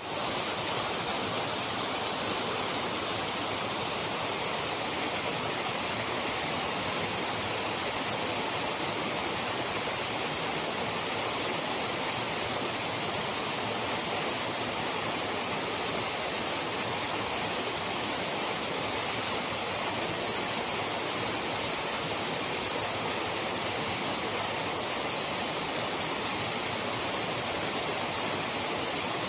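Waterfall rushing: a loud, steady wash of falling water.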